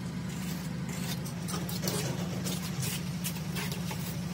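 Light scrapes and taps of hand tools working moulding sand around a brake-drum pattern, over a steady low machine hum.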